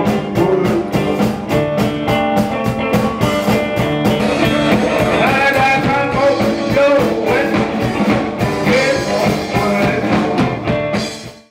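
Live electric blues: a man sings and plays electric guitar through an amplifier, with a steady beat. The music cuts off suddenly near the end.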